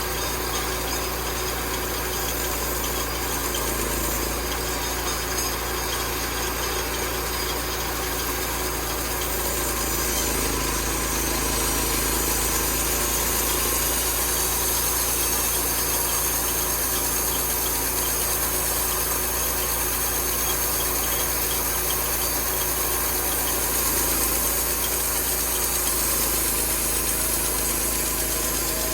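Homemade sawmill's engine running steadily, growing slightly louder about ten seconds in.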